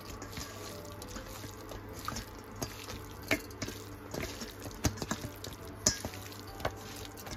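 Hands squishing and kneading raw boneless chicken pieces in a thick spice-and-flour marinade with no added water, in a stainless steel bowl: irregular wet smacks and squelches.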